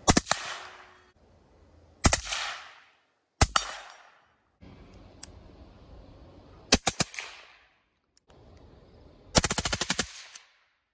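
Suppressed AR-pattern rifles firing rapid strings through a Wide Open Trigger, a forced-reset trigger. There are several short strings of shots with gaps between, each trailing off in echo, ending in a fast run of about a dozen shots.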